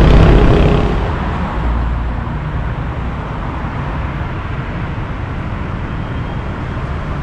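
City road traffic heard from a moving bicycle: a loud low rumble of passing traffic for about the first second, then a steady hiss of cars and tyres on the avenue.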